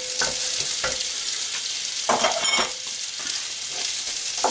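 Chopped onions sizzling in hot oil in a cast-iron pot, stirred with a wooden spoon that scrapes and knocks against the pot several times, some strokes leaving a brief ring.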